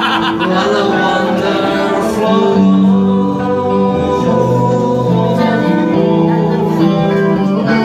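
Live band music from electric guitar, bass guitar and drums, with a man singing.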